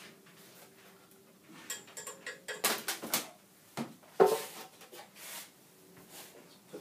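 A metal hard disk drive being handled and turned around: a run of clattering knocks, the loudest about four seconds in.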